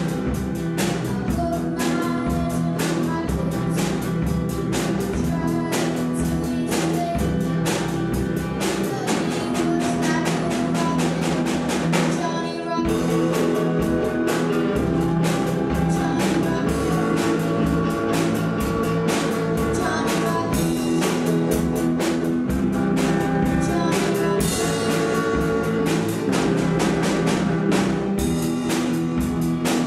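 Rock band playing: electric guitars, bass guitar and drum kit together in a steady groove, with a brief break about twelve seconds in before the band comes back in.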